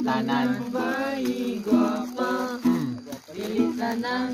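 Singing accompanied by a strummed acoustic string instrument, a casual sing-along.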